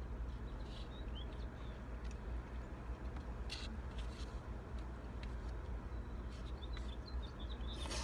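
Small birds chirping faintly in the trees, a few short calls about a second in and a run of them near the end, over a steady low hum, with a few light clicks.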